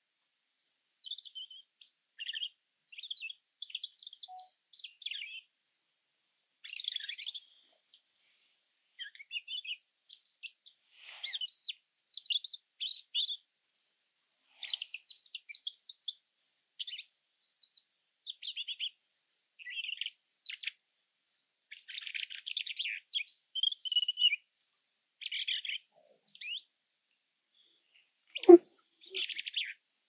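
European robin singing: a long series of high, varied, warbling phrases with short pauses between them. A short, louder knock comes near the end.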